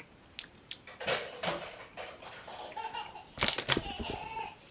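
A man's short laughter-like vocal sounds, broken by several brief clicks and knocks, the loudest a little past three and a half seconds in.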